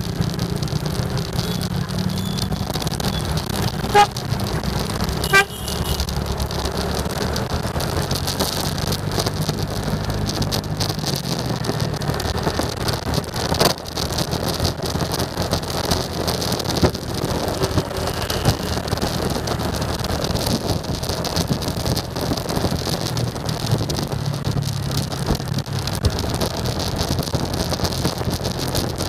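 Motorcycle engine running as the rider pulls away and cruises through traffic, with wind rushing over the microphone. Two short horn beeps about four and five seconds in.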